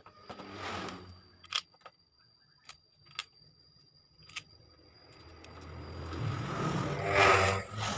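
A handful of sharp metal clicks and taps from a motorcycle's engine side cover and its bolts being handled and fitted. Over the last few seconds a passing motor vehicle's engine grows louder, peaks near the end and starts to fade.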